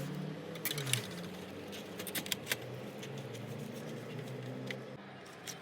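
A few light, scattered clicks and taps from handling a laptop, over a low steady hum.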